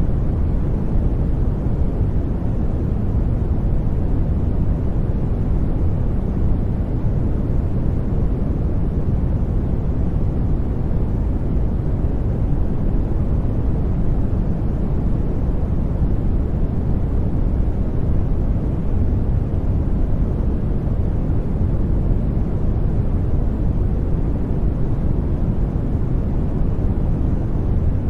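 Brown noise: a steady, deep rumbling hiss, strongest in the bass and fading toward the highs, with no change in level.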